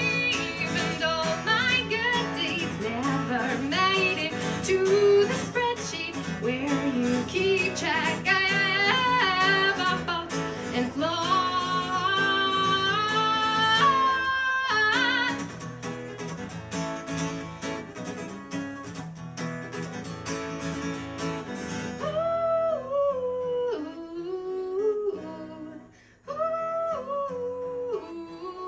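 A woman singing with an acoustic guitar, holding long notes with vibrato. About two-thirds of the way through, the guitar drops away and she carries on with her unaccompanied voice.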